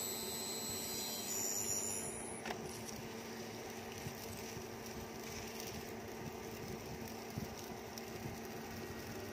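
Induction cooktop running under a tawa: a steady fan hum with a thin high electronic whine over the first two seconds or so, and a couple of light taps.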